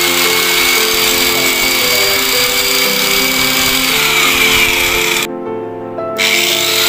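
Mailtank SH 05 electric angle grinder running at full speed with a high whine, on its first test run after assembly. It cuts out sharply about five seconds in and is back about a second later, its whine rising as it spins up again. Background music plays underneath.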